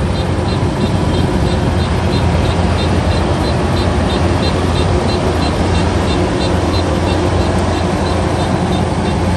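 Kubota rice combine harvester running steadily: a loud, even engine drone with a regular high ticking about three times a second over it.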